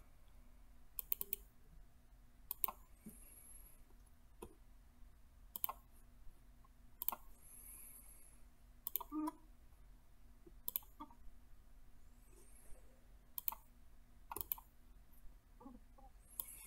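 Computer mouse clicking, single clicks and quick double clicks at irregular intervals every second or two, faint over a low steady hum.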